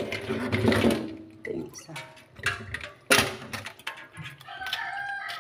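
Live mud crabs' shells and legs knocking and scraping against a wet stainless steel sink as they are picked up by hand: a string of sharp clatters, the loudest about three seconds in, with a little dripping water. A held pitched call starts near the end.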